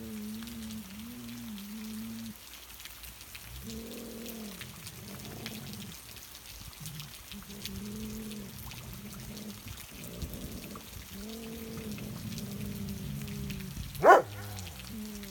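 Dogs growling low and long in a scuffle, in repeated stretches of a second or two, then a single loud, sharp dog cry near the end.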